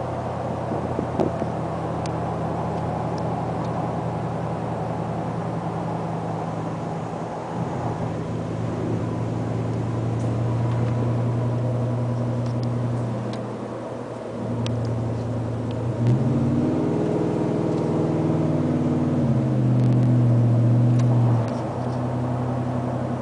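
Ford F-150 V8 exhaust through a Flowmaster 40 Series muffler, heard inside the cab. It drones steadily at cruise, then swells louder with a shifting pitch about two thirds through as the truck accelerates. It drops back sharply near the end when the throttle is lifted.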